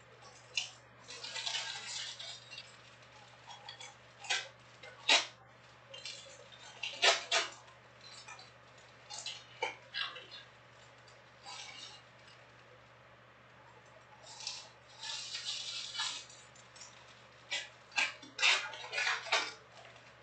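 Trading card packs and cards being handled: crinkling foil pack wrappers and rustling cards, broken by sharp clicks and taps. The clicks and taps come in two busy spells, around the start and again in the last third.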